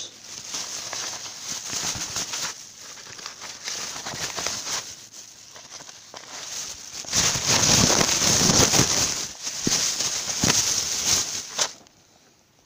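Plastic carrier bag rustling and crinkling as it is handled and opened, in uneven stretches, loudest in the second half and stopping about a second before the end.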